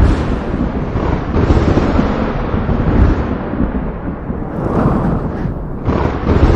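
Thunderstorm with thunder rumbling continuously, swelling and easing, with a brief lull about four seconds in, over wind noise.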